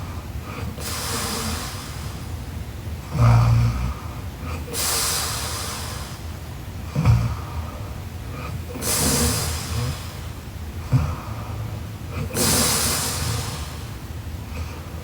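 A young woman snoring in her sleep. Slow, noisy breaths come about every four seconds, with short, low snores between them.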